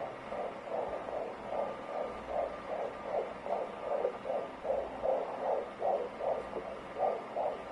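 Fetal heartbeat picked up by a Doppler ultrasound monitor: a fast, even pulse of about two and a half beats a second, over a faint steady hum.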